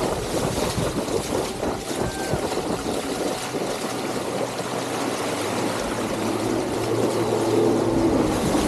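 Wind buffeting the microphone over rushing water, with a motor running steadily underneath; a faint steady hum comes up in the second half.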